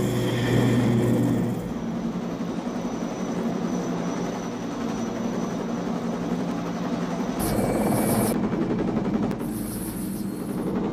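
Helicopter engine and rotor drone, steady, over a rushing noise that swells louder about seven and a half seconds in.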